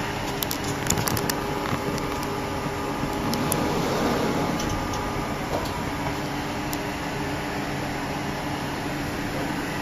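Odd-form PCB insertion machine running, with its vibratory bowl feeders: a steady mechanical hum with several sharp clicks in the first second and a half and a few more scattered later.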